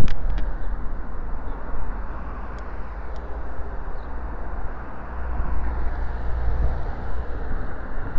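Wind rumbling on a cycling helmet camera's microphone: a steady low noise that eases a little after the first second and swells again in the second half, with a sharp click at the very start.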